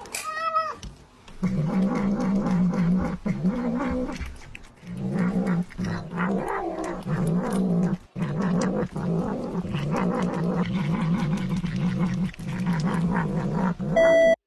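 Tabby cat making a low, drawn-out growling mumble while eating canned pâté, in long runs broken by short pauses.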